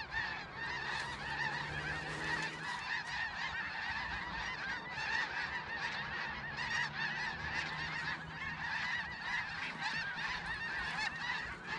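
A large flock of snow geese calling, a continuous chorus of many overlapping honks.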